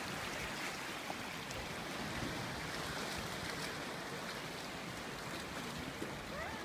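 Shallow sea water lapping and washing over rocks, a steady wash of small waves.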